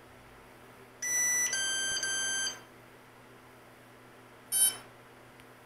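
Electronic beeps from the quadcopter's flight electronics: a held tone about a second and a half long that steps down in pitch partway through, then a single short beep a few seconds later.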